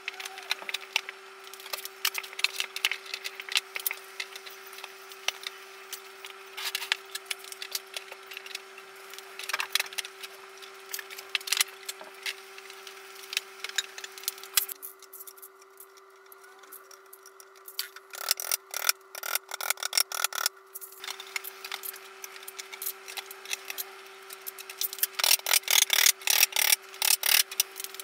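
Particleboard drawer panels being handled and knocked together, a run of light wooden knocks, taps and scrapes that comes in clusters and is busiest near the end. A steady low hum runs underneath.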